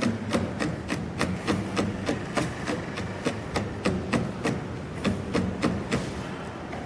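Stone being struck in a steady rhythm, sharp knocks about three a second, growing sparser near the end.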